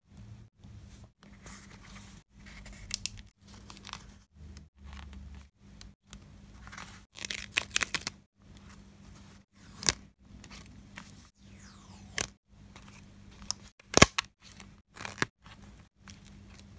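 Close-miked paper-craft sounds: stickers peeled off their backing sheet with metal tweezers, with a crackling run of peeling about halfway through. Scattered sharp clicks and taps come as the stickers are handled and pressed down, the sharpest near the end.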